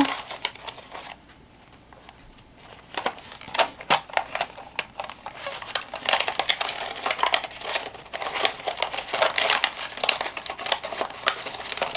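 Plastic packaging crinkling and rustling in quick, irregular crackles while inventory is handled, starting up about three seconds in after a brief lull.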